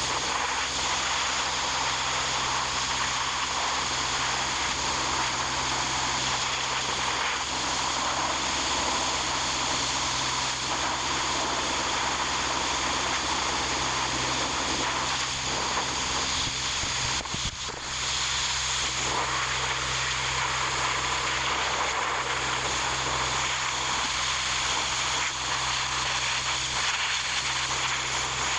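Steady mechanical drone with a constant hiss over a low hum, unchanging apart from a brief dip about two-thirds of the way through.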